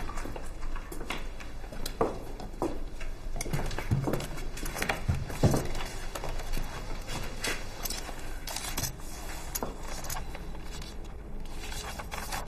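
Scattered light knocks, clatters and rubbing of people moving about a room and handling things, with footsteps.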